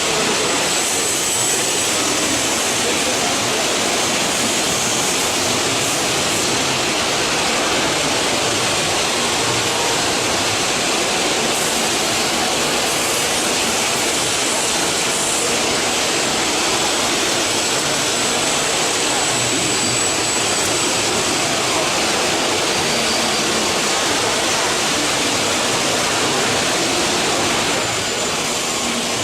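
CNC machining center running: a steady rushing hiss with a faint high whine, typical of a spindle cutting aluminum under coolant.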